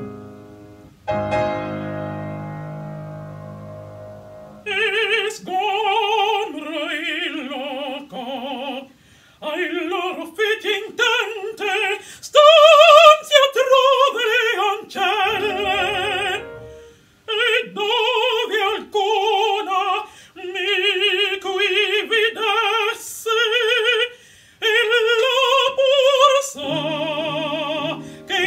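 A woman singing an Italian opera aria in full operatic voice with wide vibrato, accompanied by piano. A piano chord rings out and dies away about a second in, and the voice enters about five seconds in, in phrases broken by short breaths. Low piano chords return near the end.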